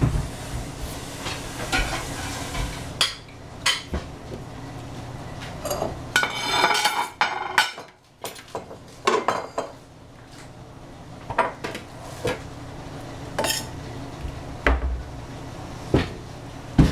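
Kitchen clatter: scattered clinks and knocks of utensils against dishes, with a longer stretch of scraping about six seconds in.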